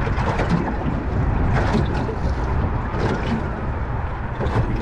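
Steady rumbling noise aboard a small boat, with a few light knocks and clicks.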